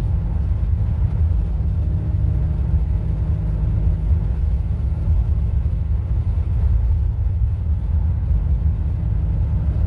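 Nissan G35 V6 running through ISR test pipes: a steady, deep exhaust rumble with no change in pitch.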